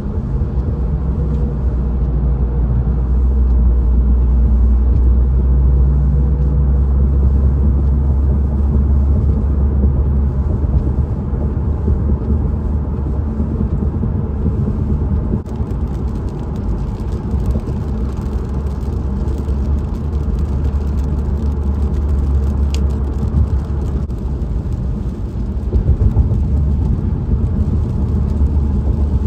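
Steady road noise of a car driving at freeway speed on a wet road, heard inside the cabin: a deep low rumble with tyre noise over it.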